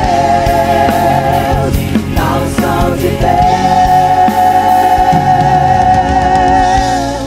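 Gospel song with band accompaniment closing on long held sung notes with vibrato, a short sung phrase between them; the music begins to fade out at the very end.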